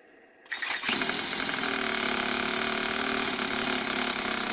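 Toyan FS-S100 single-cylinder four-stroke nitro model engine starting about half a second in, then running steadily.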